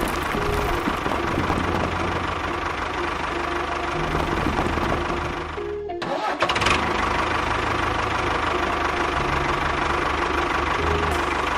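A small engine running steadily under background music, with a brief break about six seconds in.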